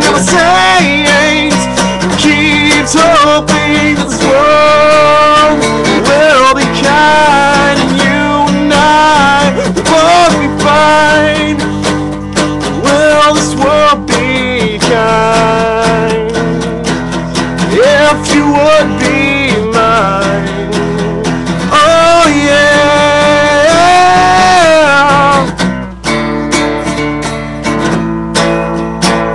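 Acoustic guitar strummed steadily while a man sings long held, sliding notes over it. Near the end the voice stops and the guitar goes on alone.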